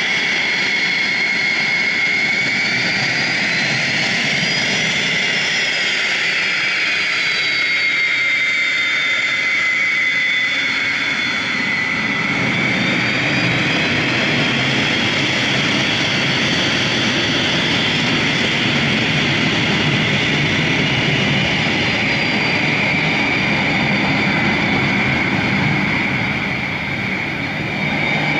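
Cessna 550 Citation II business jet taxiing, its two Pratt & Whitney JT15D turbofans giving a steady high whine that rises and falls in pitch a few seconds in. From about halfway on, a deeper rushing jet exhaust noise grows as the jet turns its tail toward the listener.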